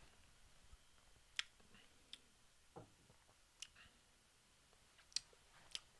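Near silence: room tone with about six faint, sharp clicks scattered through it.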